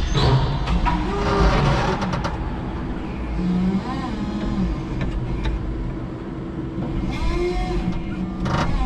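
Electric forklift's motors and hydraulics running as the mast and forks are manoeuvred: a steady low hum with short rising and falling whines, and a sharp clunk near the end.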